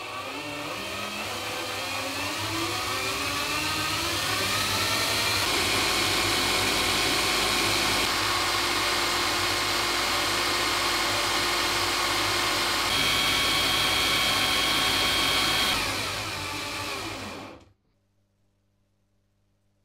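A workshop machine tool's electric motor spinning up over the first few seconds, then running steadily with a loud whirring rush and a thin high whine, winding down near the end and cutting off abruptly.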